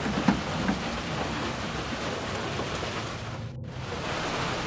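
Heavy rain pouring steadily, with a couple of light knocks in the first second.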